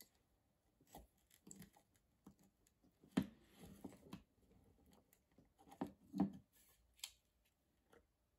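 Gloved hands handling the parts of a dismantled hot glue gun: scattered soft knocks and clicks of plastic and metal pieces being moved, the loudest about three seconds in and two more close together around six seconds in.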